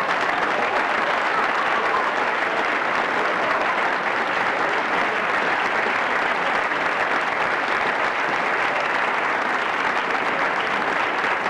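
Audience applauding, a dense, steady clapping at an even level.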